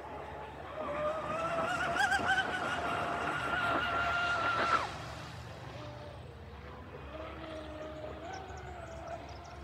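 Electric motor of an 8S RC catamaran whining at speed as the boat runs across the water. The whine is loudest and wavers slightly from about one to five seconds in, then drops away sharply and continues fainter and lower.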